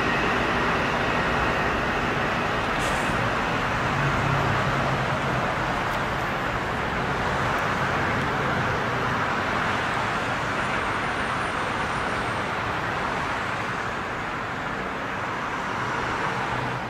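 Steady rolling rumble of a Long Island Rail Road electric train pulling away from the station, fading slowly as it recedes.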